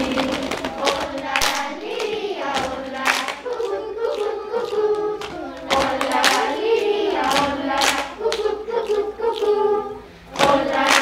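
Children's choir singing a song together, with sharp hand claps keeping time between the sung phrases.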